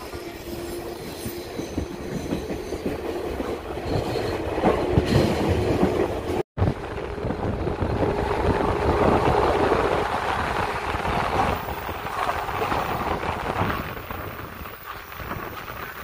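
JNR 185 series electric train running at speed, heard through its open window: steady rail and wheel noise mixed with rushing wind, swelling louder twice. The sound cuts out completely for a split second about six seconds in.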